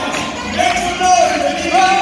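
Swing music playing for lindy hop dancing, with long held melody notes, a new one starting a little before the end.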